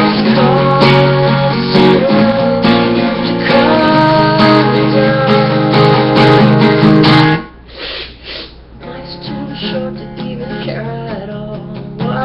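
Acoustic guitar strummed with full, ringing chords. The playing drops suddenly to a much quieter level about seven seconds in and carries on softly.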